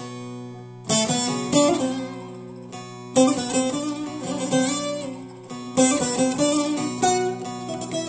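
Long-necked bağlama (saz) played solo: a plucked melody over ringing drone strings, with sharp strummed strokes about a second, three seconds and six seconds in.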